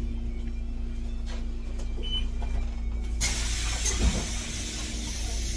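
Interior sound of a moving city bus: a steady low rumble with a constant drive hum. About three seconds in a loud hiss of air starts and keeps going, with a brief thump a second later.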